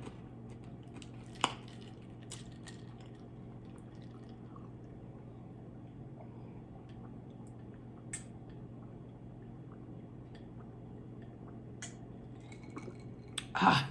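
Sparse, wet eating sounds close to the microphone: a few short mouth clicks and smacks, over a steady low hum.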